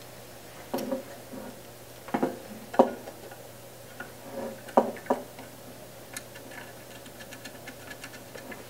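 Hands plugging a video cable into a small AV encoder box: several sharp clicks and knocks of connector and plastic casing, then a run of quick light ticks in the second half.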